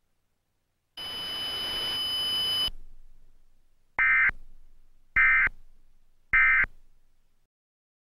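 Emergency Alert System end-of-message signal: three short, identical buzzy digital data bursts (the SAME "NNNN" EOM), a little over a second apart. About a second in, before them, comes a burst of hiss with steady high whines that lasts under two seconds.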